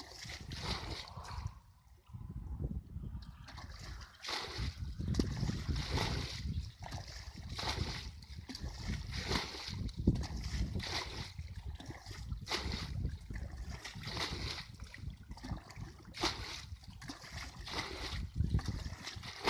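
Water splashing in a run of short bursts, roughly one a second, over a low rumble.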